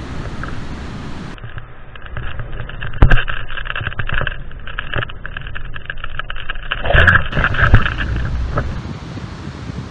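Wind rushing and buffeting over a paraglider pilot's camera microphone in flight, gusty, with sharp knocks of wind about three seconds in and again around seven to eight seconds. Before and after this stretch, a steadier hiss of wind and surf.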